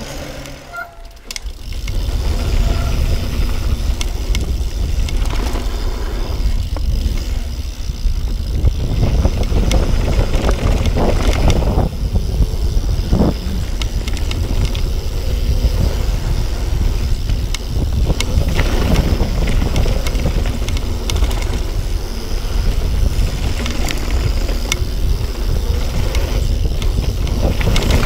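Yeti SB6 mountain bike descending a dirt trail at speed: steady rumble of wind on the camera microphone and tyres on packed dirt, with frequent clicks and rattles from the chain and frame. The sound drops away briefly about a second in, then comes back loud.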